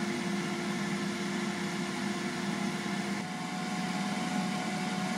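CHEFREE AFG01 grill and air fryer running in Air Fry mode while preheating, its fan giving a steady whir and hum. The pitch of the hum shifts slightly about three seconds in.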